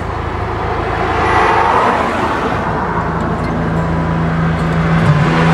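Road and engine noise inside a car's cabin, a steady rushing sound. About halfway through a steady low hum joins it and steps higher in pitch near the end.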